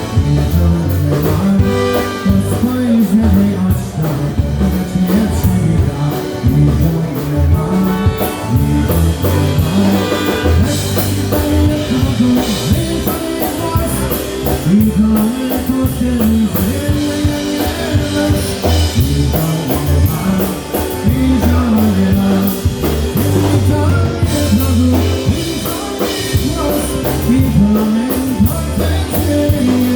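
Live polka band playing a fast oberek in triple time, with a drum kit keeping a steady beat under a bass line and melody.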